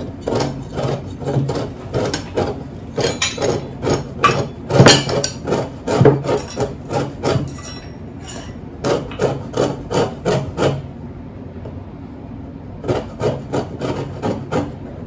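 A lemon's rind being grated on a handheld metal rasp grater resting on a plate: quick scraping strokes, about two a second, with a pause of about two seconds near the end.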